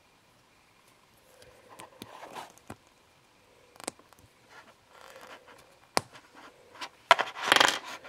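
Hands handling a toy and its packaging: after a moment of quiet, rustling and scraping with a few sharp clicks, the loudest a scraping rustle near the end.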